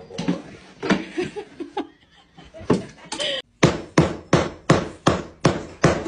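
A series of sharp knocks or strikes, irregular at first, then a steady run of about three a second in the second half.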